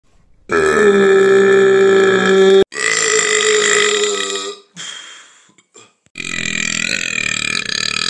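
A man's loud, long, deliberate burps, each held at a steady pitch for about two seconds: two back to back from about half a second in, then a third starting about six seconds in.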